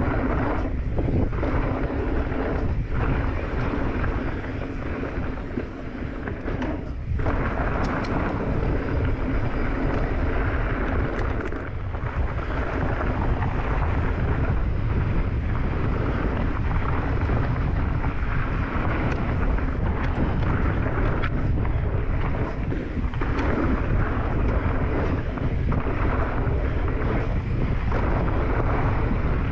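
Wind buffeting the microphone of a camera on a mountain bike riding fast down a dirt trail, over a steady low rumble of the tyres on the dirt. The noise drops briefly a couple of times.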